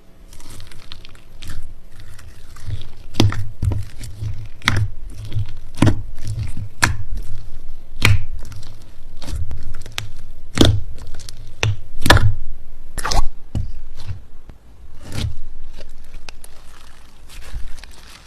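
Slime being squeezed and pressed by hand: sticky squishing with irregular sharp pops and clicks, roughly one a second.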